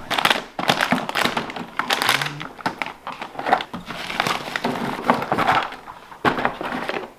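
Hand tools and small parts clattering and knocking against each other and the plastic as someone rummages through an open plastic toolbox, with some crinkling of packaging; a run of irregular clicks and knocks.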